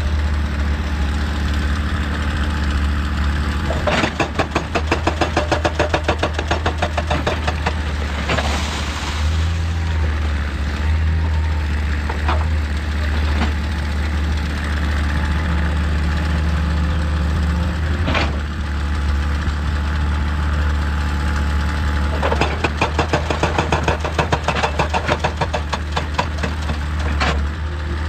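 Excavator's diesel engine running steadily, with two spells of rapid, even hammering of a few seconds each from a hydraulic breaker striking rock, and a few single knocks between.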